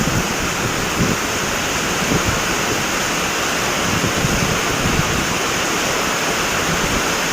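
Heavy downpour driven by strong wind: a loud, steady rush of rain that never lets up.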